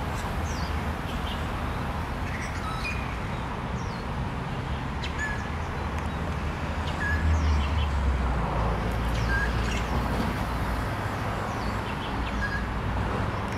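Scattered short bird chirps over a steady low rumble, which grows louder about seven seconds in.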